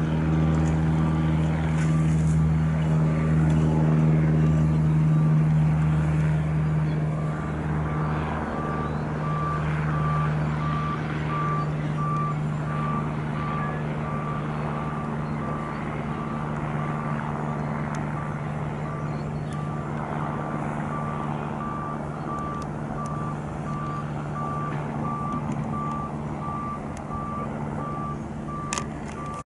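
A vehicle's reversing alarm beeping steadily and evenly over a steady engine drone that slowly fades.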